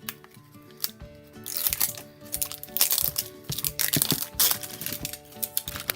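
Plastic wrapping crinkling and crackling as a small wrapped toy accessory is unwrapped by hand, busiest from about a second and a half in until near the end, over background music with steady held notes.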